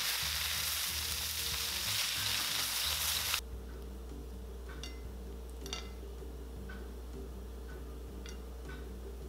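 Pad thai rice noodles stir-frying in a hot wok as chopsticks toss them: a steady, hissing sizzle that cuts off suddenly about three and a half seconds in. Quieter background music follows, with a few soft chiming notes.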